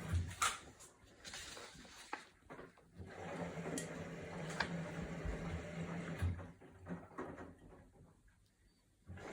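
Samsung WW80TA046AX washing machine running with a low hum and irregular sharp knocks and clunks: the horrible noise the machine is making. The hum dies away near the end, then picks up again.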